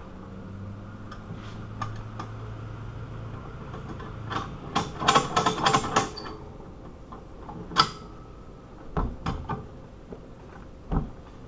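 A quick run of sharp metal clicks and clacks, then a single sharp click and a few dull thumps: a padlock and bolt cutters being handled and repositioned.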